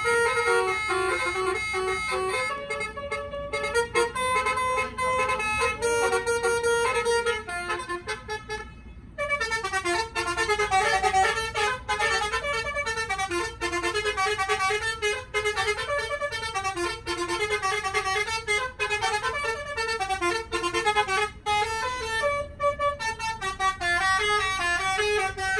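Basuri multi-tone musical vehicle horn playing a melody in stepped notes. The notes are held longer at first, then after a short break about eight seconds in they turn into a quicker run.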